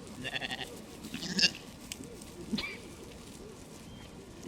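Sheep bleating: a quavering bleat near the start, then two shorter calls, the loudest about a second and a half in and another about two and a half seconds in.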